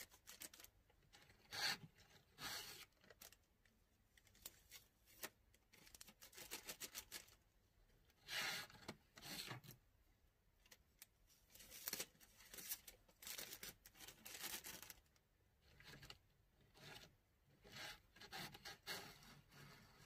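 Faint, irregular rustling and rubbing as bundles of patchouli incense sticks and a clear plastic bag are handled, in short bursts a second or so apart.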